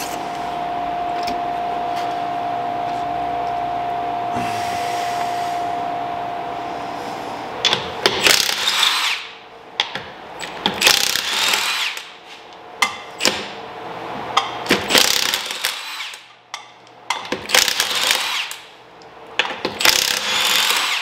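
A power tool running: a steady whine for about seven seconds, then a series of short bursts with pauses between them.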